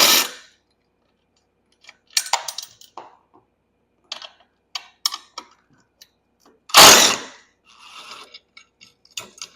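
Work on a golf cart's canopy bolts: scattered metal clinks and ratchet-like clicking from hand tools, with two short loud bursts, one at the start and one about seven seconds in.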